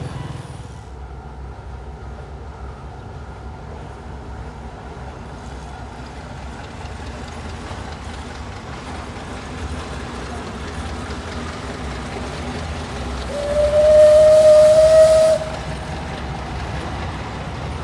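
Alishan Forest Railway Shay No. 25 steam locomotive with a low, steady rumble, then one whistle blast about two seconds long, about three quarters of the way through, its pitch creeping slightly upward.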